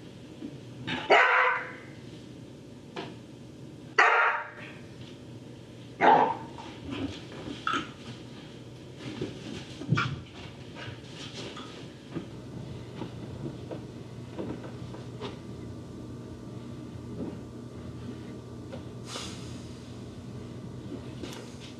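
A dog barking: three loud barks in the first six seconds or so, then a few softer ones, over a steady low hum.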